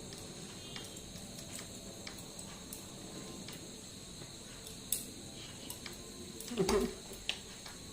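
Faint soft taps and rubbing of hands working powder onto a face, with scattered light clicks, and a brief voice sound about six and a half seconds in.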